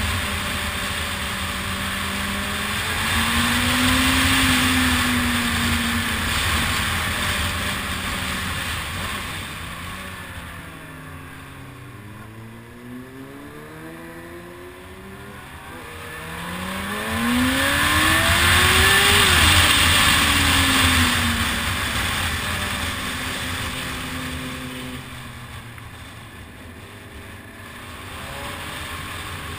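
Motorcycle engine heard from the riding bike, speeding up and easing off twice: its pitch rises and falls, loudest about four seconds in and again near two-thirds through. A rush of wind hiss swells along with it as the bike gathers speed.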